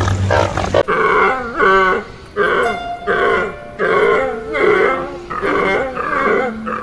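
A series of short animal calls, about two a second, following an abrupt cut from a steady humming sound near the start.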